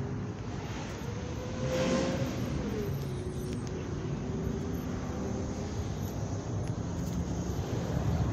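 Car traffic going by: a steady low rumble of engines and tyres, with one vehicle passing about two seconds in, its pitch rising and then falling as it goes.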